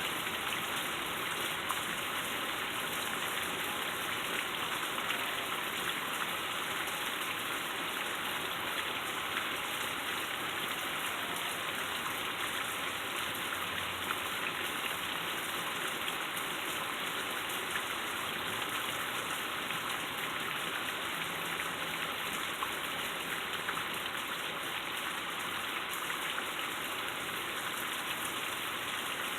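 Heavy rain falling steadily, a constant even hiss of rain on surfaces during a flooding storm.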